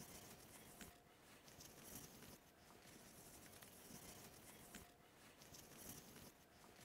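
Faint rubbing of a cloth wiping Danish oil onto wood along the grain, in repeated strokes, with a few small clicks.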